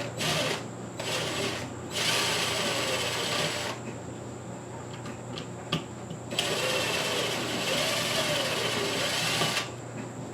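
Power drill/driver running in two spells, about two seconds in and again about six seconds in, each lasting a second or three, with its pitch wavering as it backs out the screws of a ceiling fan's mounting bracket. There are a few light knocks before the first spell.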